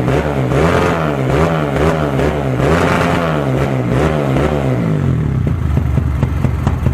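Motorcycle engine revved in quick repeated blips, about two a second, then dropping to a steady, lumpy idle for the last couple of seconds.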